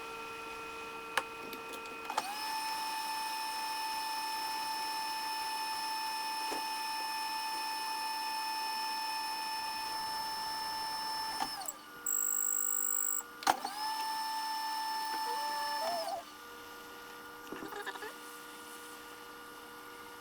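Steady electric whine from a small motor-driven bench tool, with a couple of clicks before it steps up in pitch with a short rising glide. It cuts out briefly with a short high steady tone, comes back, then drops to a lower hum.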